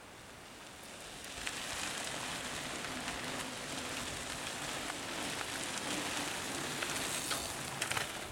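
A group of mountain bikes riding past close by on a sandy trail: tyres hissing and crunching over sand and grit, with scattered clicks. It swells about a second in and peaks near the end as the riders pass.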